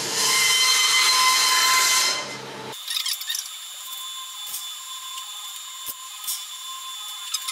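A steady machine whirr with a few steady tones, like a power tool or fan running, stopping abruptly under three seconds in. After it comes a much quieter hiss with a faint steady hum and scattered light clicks and taps of metal being handled.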